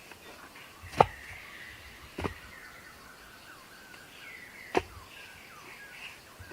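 Three sharp knocks or strikes, unevenly spaced, over faint bird chirping.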